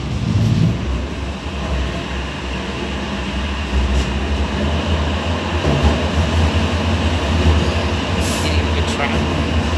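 Sheffield Supertram Siemens-Duewag tram running along the line, heard from inside the passenger saloon. A steady low rumble runs throughout, with a brief high hiss near the end.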